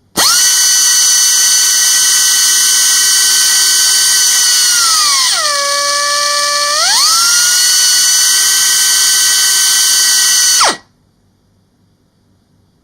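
Nitto Kohki MYTON MYG-25L pneumatic grinder starting and running free with a loud high whine over a hiss. About five seconds in, the pitch glides down as the rotation speed is turned down, holds low for under two seconds, then rises back to full speed. Near the end it is switched off and the pitch drops quickly away.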